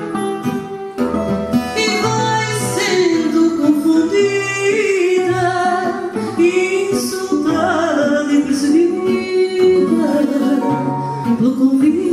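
Live fado: a woman singing a slow, sliding melody, accompanied by a Portuguese guitar and a classical guitar plucking a bass line beneath her.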